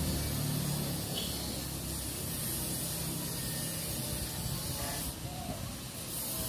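Steady outdoor background hiss, with a low hum that fades out about two seconds in.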